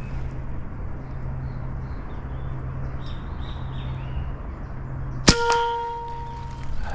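A single shot from an AEA 7.62 mm (.30) PCP air rifle about five seconds in: a sharp crack followed by a clear metallic ring that fades over about a second and a half.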